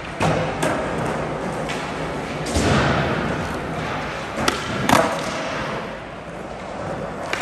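Skateboard wheels rolling on a smooth concrete floor, broken by several sharp board pops and landings, the strongest about two and a half seconds in and again near five seconds.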